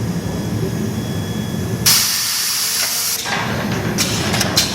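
Diamond-blade socket welding machine running with a steady hum. About two seconds in a loud hiss cuts in for a little over a second, then a few short hisses follow near the end.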